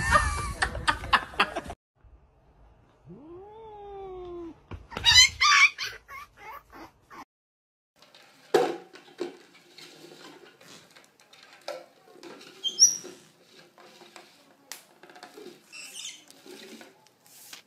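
A loud noisy scuffle that cuts off after about two seconds, then a cat's single meow that rises and falls, and a loud hissy burst. After that, a light plastic bowl knocks and scrapes on a wooden floor as a lovebird pushes it around, with a few short, high chirps.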